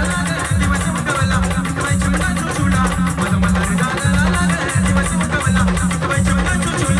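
Loud band music from a brass band: a heavy, steady bass beat with dense rattling percussion on top and a melody line over it.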